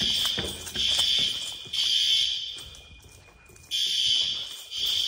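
System Sensor L-series fire alarm horns sounding the temporal-3 evacuation pattern: three horn blasts, a pause of about a second, then the three-blast cycle starting again. Each group fades slowly, echoing in the stairwell.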